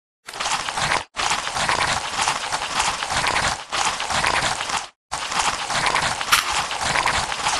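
Wet squelching and splashing of mud and shallow muddy water as eel-like fish wriggle through it: a dense, crackly run of small wet clicks. It comes in three stretches that cut off abruptly, with brief silent gaps about a second in and again about five seconds in.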